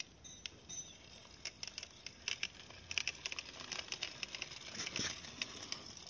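Small plastic toy car pushed by hand over rough concrete, its wheels rolling and scraping on grit in a run of small irregular clicks and crackles.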